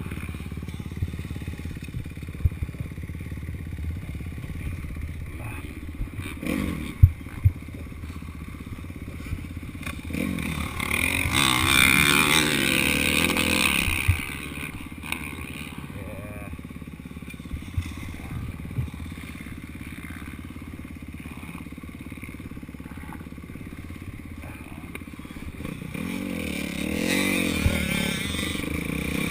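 Motocross bike engines running with a steady low drone; one bike revs up loudly for a few seconds about eleven seconds in, and revs rise again near the end. A few sharp knocks come around seven seconds in.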